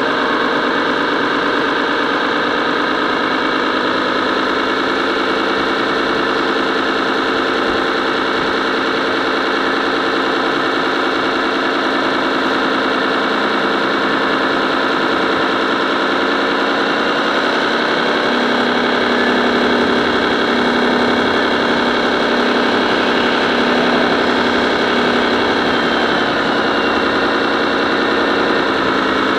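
Radio-controlled scale truck running: a steady engine-like drone made of several pitches at once. It steps up in pitch a little past halfway and settles back down a few seconds before the end.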